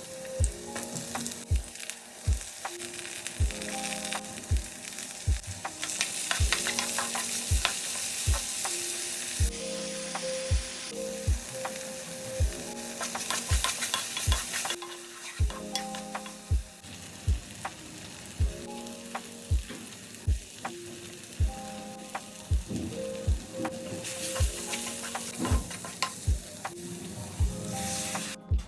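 Food frying and sizzling in hot oil in a pan while being stirred. The sizzle swells louder about six seconds in and again near the end, under background music with a steady beat.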